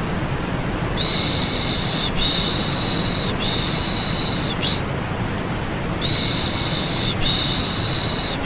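Steady white noise with rhythmic 'shh' shushing over it for calming a baby. There are three drawn-out shushes of about a second each, a pause of about a second and a half, then three more.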